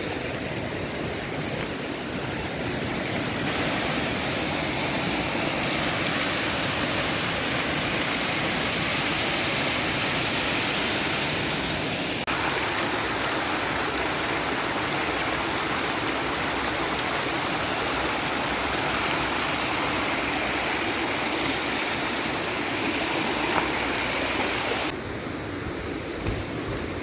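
Steady hiss of heavy rain and running water, shifting in level a few times.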